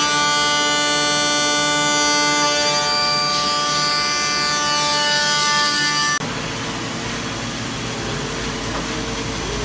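CNC milling machine cutting an aluminium block under flood coolant: a steady, many-toned cutting whine for about six seconds. It then changes abruptly to a noisier running sound with a low rumble as a small end mill cuts the grip's rows of dimples.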